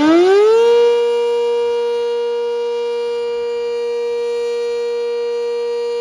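Sentry 10V outdoor warning siren finishing its rising wind-up within the first second, then holding a steady alert tone at one pitch with many overtones. This is the steady alert signal of a one-minute siren test.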